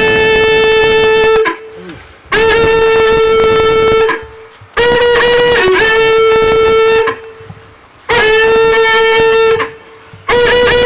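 A horn-like wind instrument blowing long held notes on one pitch, about five blasts of one to two seconds each with short gaps between them; two of the blasts dip briefly in pitch midway.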